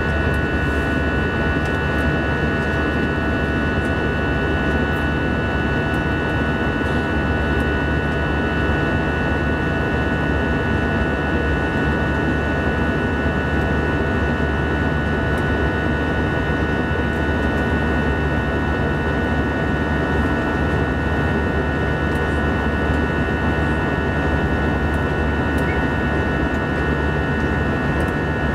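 Airbus A321-200 cabin during the climb, with its CFM56-5B turbofan engines running at climb power. A steady, loud drone with several steady high tones on top, unchanging throughout.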